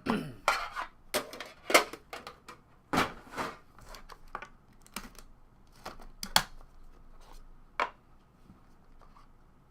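Hands opening trading-card packaging: sharp plastic clicks, tearing and crinkling, thick in the first few seconds and thinning to a few lone clicks later on.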